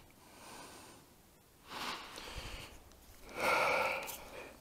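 A man breathing out heavily three times, like sighs, each louder than the one before, the third near the end.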